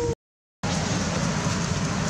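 Steady outdoor background noise with a low rumble, broken near the start by about half a second of total silence where the sound drops out completely.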